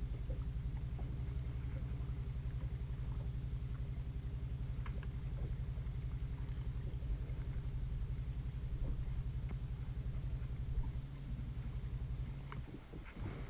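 Boat motor running steadily: a low, even hum with a fast pulse, with a few faint clicks over it.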